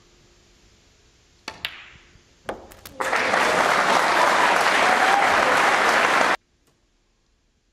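Snooker balls click sharply a few times as a shot is played, then a crowd applauds loudly for about three seconds before the sound cuts off abruptly.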